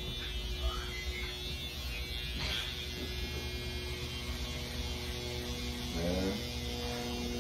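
Electric hair clippers buzzing steadily while cutting hair.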